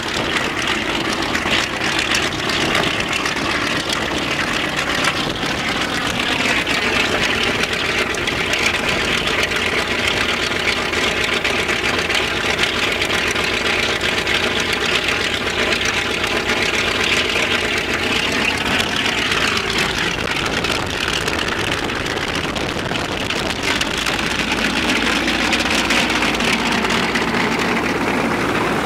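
Shvetsov ASh-82T fourteen-cylinder twin-row radial aircraft engine of an Ilyushin Il-14 running steadily on the ground, driving its propeller.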